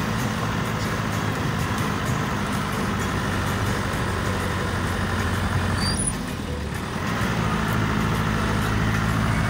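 Car engine and tyre drone heard from inside the moving car, a steady low hum that dips briefly about six seconds in before picking up again. A short high chirp sounds at the dip.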